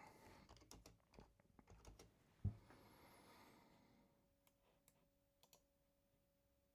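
Faint scattered clicks and taps, with one low thump about two and a half seconds in.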